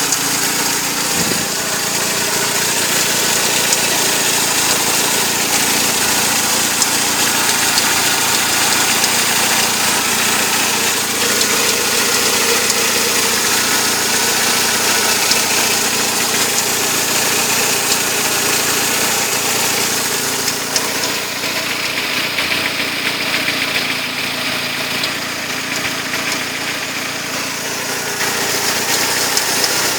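Mercedes-Benz W201 engine idling steadily, with a clicking that the owner places in the area of the power-steering pump.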